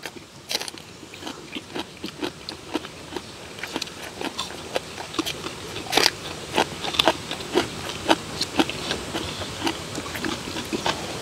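Close mouth sounds of several men eating curry rice and green onion kimchi: chewing and lip-smacking in quick, irregular clicks, with a sharper smack about six seconds in.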